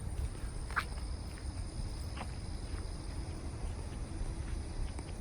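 A few light footsteps of someone walking with the camera, over a steady low rumble and a faint, steady high-pitched hum.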